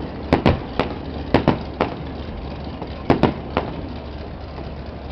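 Fireworks going off: about nine sharp bangs in three quick clusters over the first four seconds.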